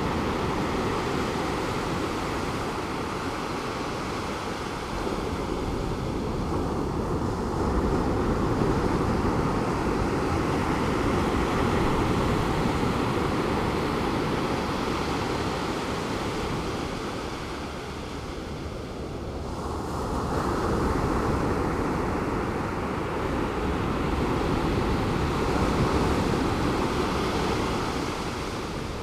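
Pacific Ocean surf breaking and washing on the beach, a steady rush that swells and eases every few seconds, with a softer lull in the middle.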